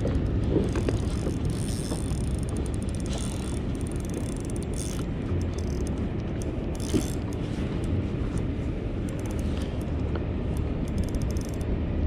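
Fishing reel being cranked and its ratchet clicking rapidly while a hooked fish is played, over a steady low rumble.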